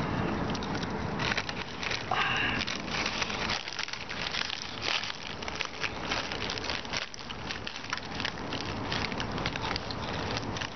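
Foil chip bags crinkling as they are handled and tipped, with crunchy Cheetos being eaten: a dense, irregular crackle of many small clicks.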